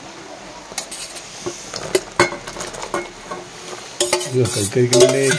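A spoon clinking and scraping in a cooking pot as cooked pasta is tipped and stirred into boiled milk, with irregular knocks and clicks starting about a second in. A short pitched tone joins the clatter during the last second or so.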